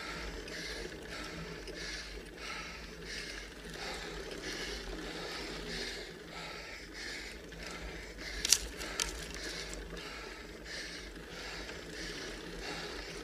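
A cyclist breathing hard in rapid, even gasps, about three breaths every two seconds, at near-maximal effort on a climb steeper than 20%. A single sharp click comes about eight and a half seconds in.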